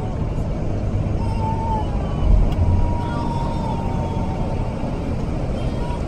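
Interior noise of a moving bus: a steady low engine and road rumble, with a brief heavier bump about two seconds in.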